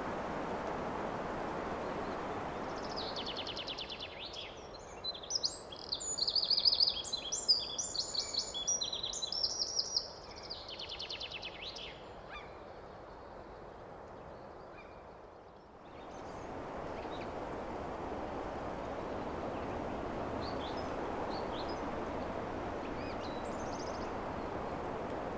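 Wind rushing steadily through pine trees, giving way to close, lively birdsong: quick pips, twitters and sweet song for several seconds. After a brief lull, wind in the trees rises again with a few faint, scattered bird calls.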